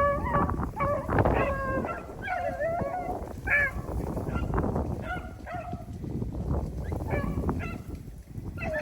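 Pack of rabbit hounds baying and yelping in repeated, overlapping drawn-out calls, the sound of dogs giving voice while running a rabbit, over steady low noise.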